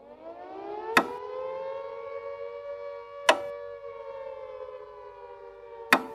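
Air-raid siren winding up in pitch, holding, then slowly winding down. It is cut by three loud, sharp clock ticks spaced about two and a half seconds apart, which are the loudest sounds.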